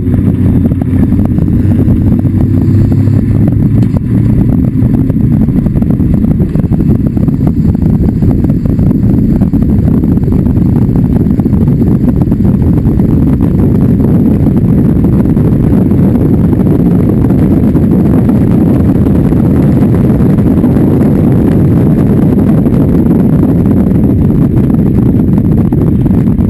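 Open-wheel race car's engine running hard on track, heard up close from a hood-mounted camera, rising in pitch as it accelerates over the first few seconds and then holding a steady loud drone mixed with wind rush.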